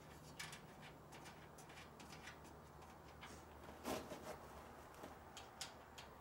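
Faint light clicks and metal taps from bolt hardware being fitted onto an aluminum hitch-carrier ramp, with one louder clank about four seconds in, over a faint low hum.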